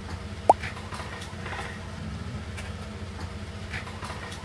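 A steady low hum with faint scattered clicks, cut by one short, rising squeak about half a second in.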